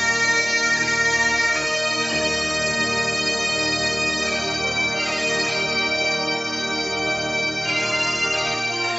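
Bagpipes playing a slow tune, held notes changing every second or two over steady drones.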